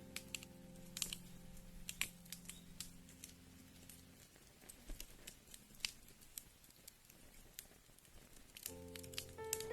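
Wood fire crackling with scattered sharp pops over a faint, even rain hiss. Soft sustained music notes fade out about four seconds in and come back near the end.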